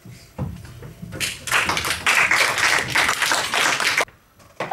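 A small audience clapping by hand, a dense burst of applause that lasts about three seconds and then stops abruptly, with a few dull thumps just before it starts.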